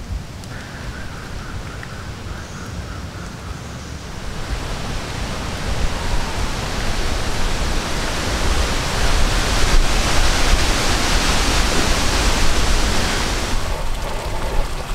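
A gust of wind rushing through the forest canopy of a rain-soaked woodland. It builds a few seconds in, peaks as a loud rushing in the leaves, then falls away near the end.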